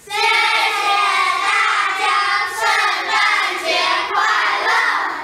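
A group of children singing together loudly, many voices at once. It starts suddenly and falls away near the end.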